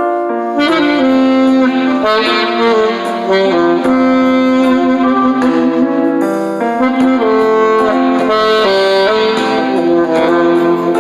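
Saxophone playing a song melody in long held notes over an accompaniment.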